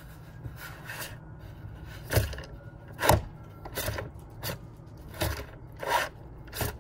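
Chinook one-bolt tendon universal-joint windsurf mast base knocking and clicking as it is moved by hand on the board: a series of about nine sharp knocks, the loudest two a little over two and three seconds in.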